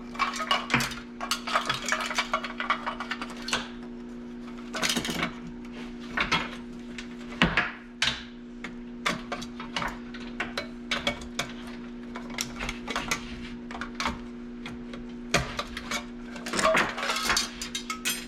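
Irregular clinking, clacking and rattling of metal parts and hand tools being handled while a dehumidifier is taken apart for scrap, over a steady background hum.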